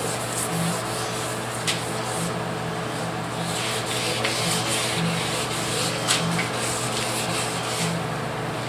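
Sandpaper rubbing by hand across a pickup's freshly painted door panel in steady back-and-forth strokes: color sanding Rust-Oleum paint to level out orange peel. A steady low hum runs underneath.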